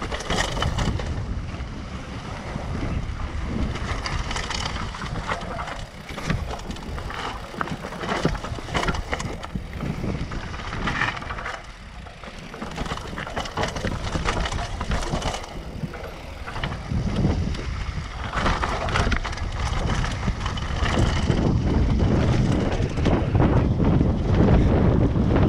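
Mountain bike descending a rocky downhill trail: the tyres crunch over gravel and stones and the bike rattles with many small knocks over the bumps. Wind buffets the helmet-mounted camera's microphone throughout and gets louder in the last few seconds as speed builds.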